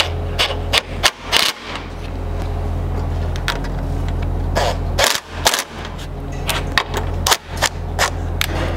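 Cordless impact tool running with rapid hammering as it tightens bolts with a half-inch socket, in several runs with sharp clicks and clanks of metal hardware in between.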